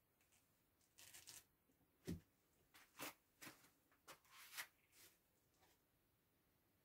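Faint rustles, scrapes and knocks of a large floor-standing speaker cabinet being handled and shifted on cardboard floor sheets, with a dull thump about two seconds in.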